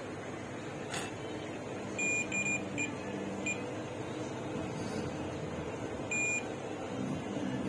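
UNI-T UT33D digital multimeter's continuity buzzer giving short high beeps as its test probes touch points on a phone circuit board. There are several beeps in quick succession about two seconds in and one longer beep about six seconds in, each marking a moment of electrical connection between the probed points. There is a single click about a second in.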